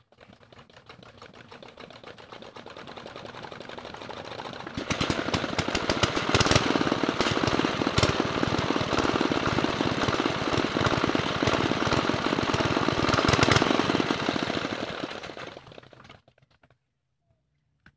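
Small Chinese diesel engine being started: a quieter rattle builds for about five seconds, then the engine catches with a sudden jump to a loud, rapid diesel clatter. After about ten seconds of running it dies away and stops.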